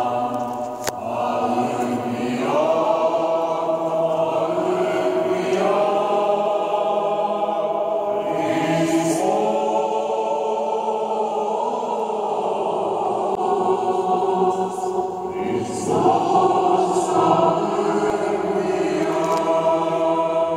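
Orthodox church choir chanting Vespers hymnody in long-held, sustained chords that shift from one to the next every few seconds.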